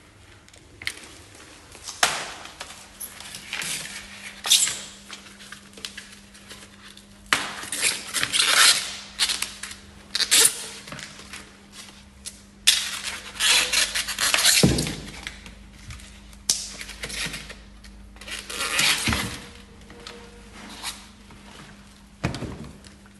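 Irregular bursts of rustling and clatter from a folding e-bike and its packaging being handled during assembly, with a few dull thunks.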